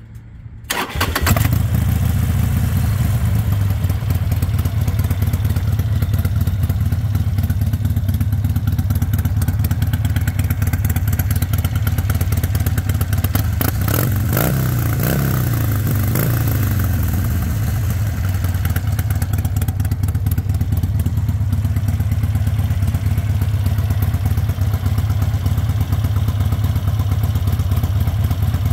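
2009 Harley-Davidson Sportster XL1200C's air-cooled 1200 cc V-twin engine cranks briefly and catches about a second in, then idles. About halfway through, the throttle is blipped once and the engine revs up and settles back to idle.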